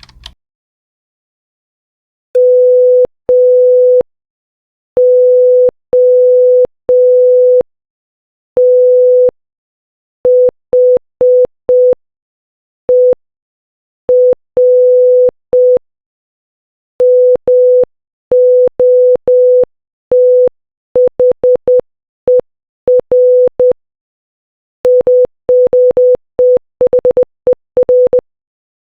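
Morse code beeps in a single steady tone spelling "MOTHER" (-- --- - .... . .-.): played slowly once, then repeated several times, each time faster, with the dots and dashes getting shorter and closer together.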